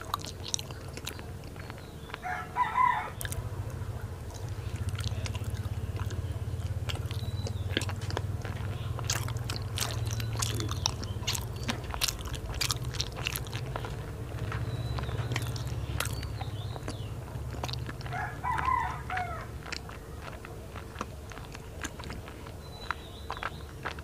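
Close-miked chewing of a soft sweet, with many wet mouth clicks and smacks over a low rumble from the mouth. A rooster crows twice in the background, a couple of seconds in and again near the end.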